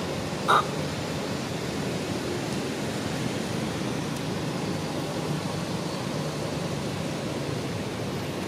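Steady outdoor background noise, an even rushing hiss, with one short high squeak about half a second in.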